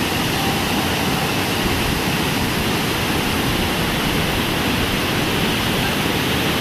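Steady, unbroken rush of water, even in level throughout, with no distinct events.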